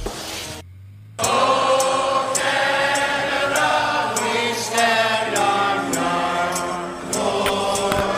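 Music: a drum-backed track ends, and about a second in a new track begins with sustained chords over a light, regular ticking beat.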